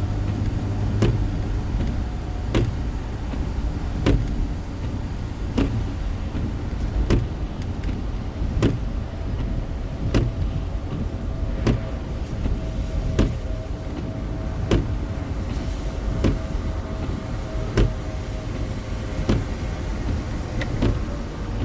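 Inside a car driving in heavy rain: a steady rumble of road, tyre and rain noise, with the windshield wipers knocking evenly about once every second and a half.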